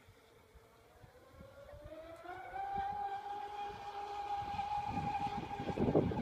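Whine of the RC speedboat's twin TFL 5684 1200kv brushless motors at speed. It climbs in pitch about two seconds in, then holds a steady high note while growing louder. A low rumbling noise builds under it near the end.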